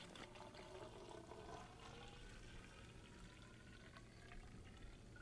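Water glugging faintly out of a plastic bottle into a hollow bull kelp stalk. The pitch rises steadily as the kelp tube fills.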